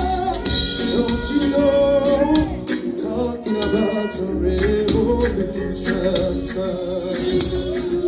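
Male reggae singer singing live into a handheld microphone over music with steady bass and regular drum hits.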